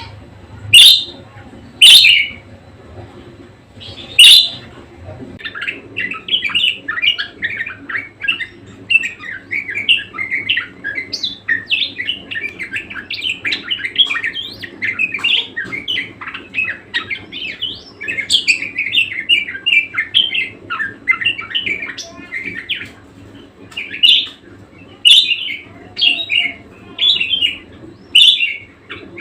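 Budgerigar chattering and warbling: a few loud, sharp squawks at the start, then a long run of fast, busy chirping, with more loud squawks near the end.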